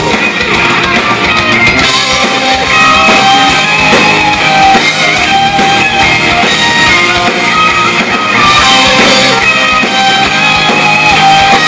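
Live hard rock band playing an instrumental passage: distorted electric guitars over a drum kit and bass, with no vocals.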